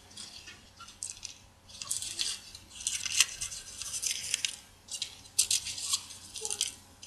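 A series of short, scratchy hissing sounds as kitchen things are handled at the counter, coming in clusters through most of the stretch.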